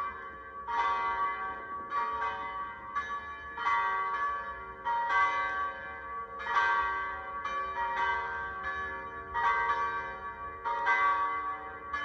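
Several church tower bells of different pitches swinging and ringing together, with a new stroke about every half second and each one ringing on under the next.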